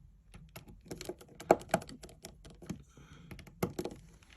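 Light, irregular clicks and taps of a precision screwdriver and small metal parts against an iPhone 7 Plus's internal shield plate as its tiny screws are fitted.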